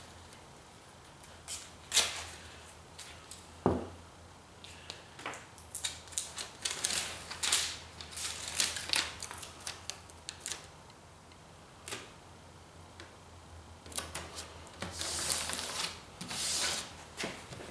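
Aluminium foil tape being pulled off the roll, handled and pressed down along a box seam by hand: scattered crackles and clicks, two sharper clicks in the first four seconds, and longer crinkling rustles near the end.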